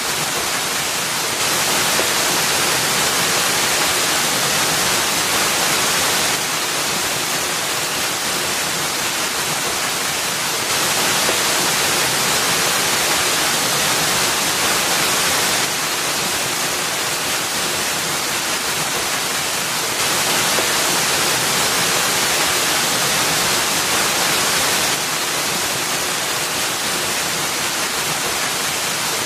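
Small waterfall splashing steadily into a shallow rock pool, an even rushing hiss. The level steps up and down a little every five seconds or so.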